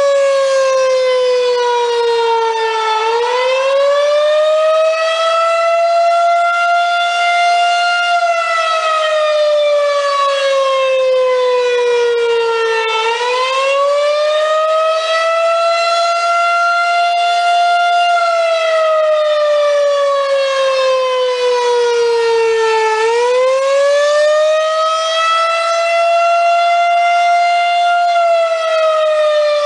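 Federal Signal 2001-130 electromechanical outdoor warning siren, a single-tone rotating siren, sounding a loud, steady wail. Its pitch dips to its lowest, climbs back up and holds for a few seconds, then slides slowly down again, repeating about every ten seconds.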